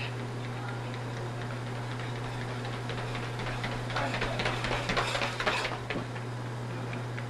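Rapid running footsteps of two sprinters on a hard tiled hallway floor. They come in faintly about three seconds in, grow louder as the runners approach, are loudest from about four to five and a half seconds, then stop quickly just before six seconds.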